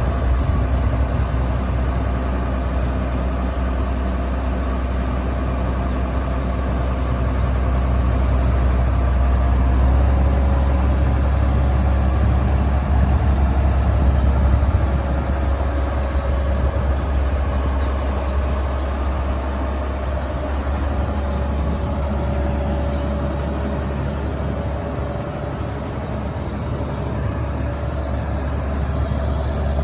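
Case IH 2188 Axial-Flow combine harvester's diesel engine running steadily at idle, with a deep, even hum.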